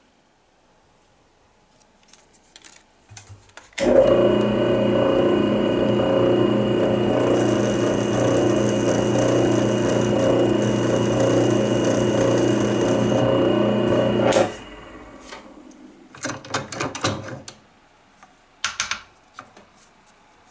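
A small electric power tool starts, runs steadily for about ten seconds with a higher hiss added through the middle, then switches off. Light clicks and handling sounds come before and after it.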